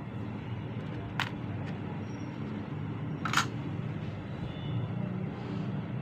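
Two short clicks of the parts of a taken-apart keypad being handled and set down; the second, about three seconds in, is louder. A steady low rumble runs underneath.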